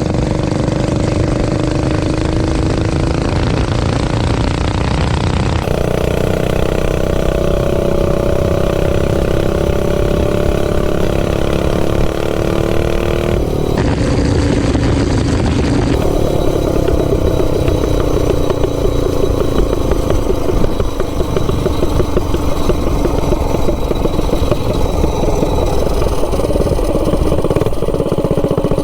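Stage 3 single-cylinder clone minibike engine running under way through a baffled header pipe, its pitch rising and falling as the throttle opens and eases off. The sound changes abruptly a few times.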